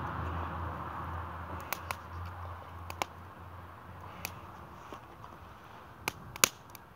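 Wood fire crackling, with scattered sharp pops that come at uneven gaps. The loudest pop is about six and a half seconds in. Under them runs a steady background hiss that slowly fades.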